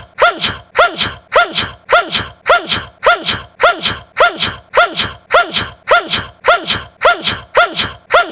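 A young man's small, cute sneeze, a quick high-pitched rising 'ah' that breaks into a hissy 'choo'. The same sneeze is looped back to back, about two a second.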